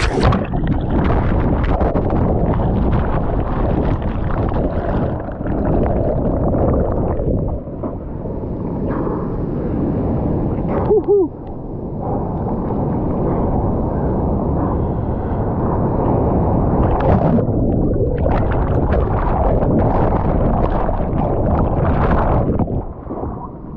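Breaking waves churning over a surfer, heard muffled as if through a submerged or water-covered camera: a heavy, continuous rumble of turbulent whitewater with gurgling, and a brief lull about eleven seconds in.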